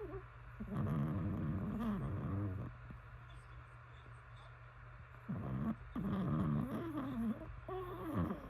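A sleeping pet dog snoring: two long, wavering snores about four seconds apart, one on each breath.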